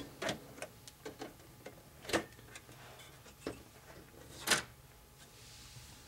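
Dell Optiplex 755 case cover being unlatched and lifted off: a series of light clicks and knocks, with a stronger knock about two seconds in and the loudest about four and a half seconds in.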